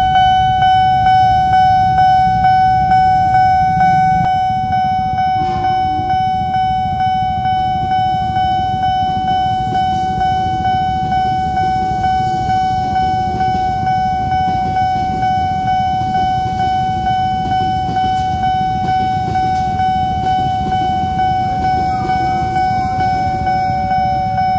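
Nippon Signal electronic level-crossing alarm ringing steadily at a fast tempo, about two rings a second, sounding while the crossing is closed for a train. Under it is the low rumble of a passing electric commuter train.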